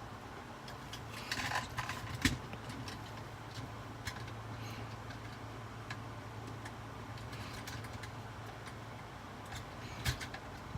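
Plastic toy being handled: a few scattered clicks and taps, the loudest about two seconds in and another near the end, over a low steady hum.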